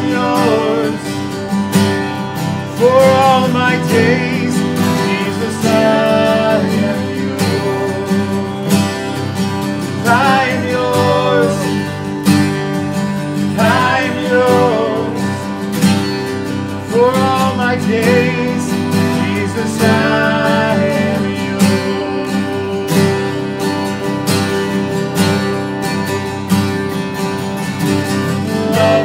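Two acoustic guitars strummed together in a slow country-style song, with a melody recurring every few seconds over the chords.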